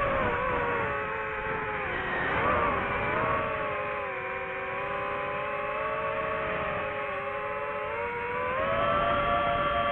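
DJI FPV drone's motors and propellers whining. The pitch dips about two to three seconds in, holds lower, and rises again near the end as the throttle changes.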